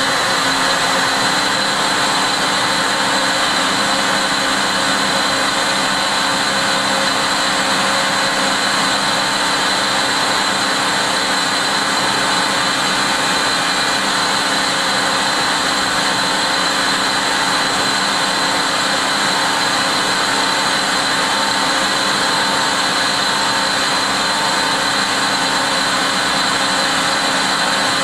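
Citizen A20 VII Swiss-type CNC lathe cutting a thread with its thread-whirling attachment, coolant spraying over the work: a steady hiss with a high whine.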